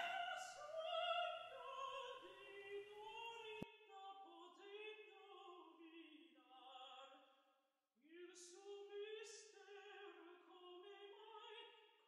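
Operatic singing voice, a slow melody of long held notes with vibrato, breaking off briefly about eight seconds in before going on.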